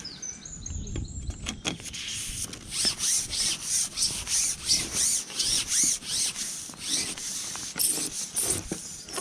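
Rhythmic rubbing swishes, about three a second, as a long carbon fishing pole is held and worked.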